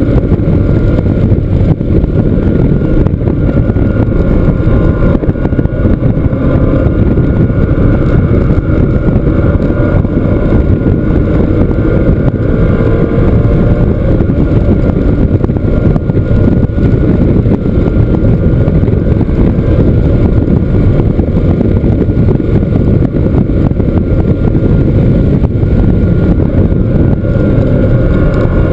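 Porsche flat-six engine running hard on track, its pitch drifting up and down with speed and gear changes, under a dense low rumble of wind and road noise.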